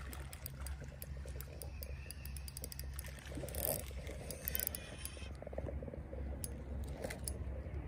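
Small spinning reel being cranked to reel in a hooked horse mackerel: irregular light clicks and whirring from the reel and handle, over a steady low hum.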